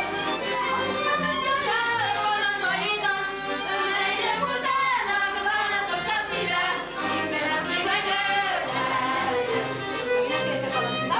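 Live Hungarian folk wedding music, accordion and fiddle playing a dance tune, with voices singing along in wavering, vibrato-laden lines.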